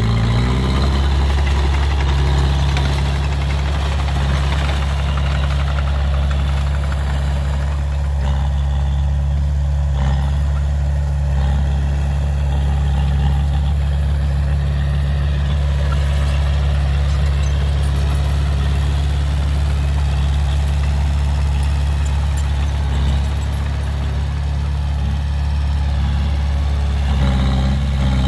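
Heavy earthmoving machine's diesel engine running steadily in a low, even drone, with a brief shift in engine pitch right at the start and again near the end.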